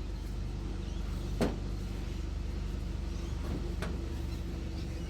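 A small electric motor running steadily, spinning a clamped part, with two sharp clicks, one about a second and a half in and another near four seconds.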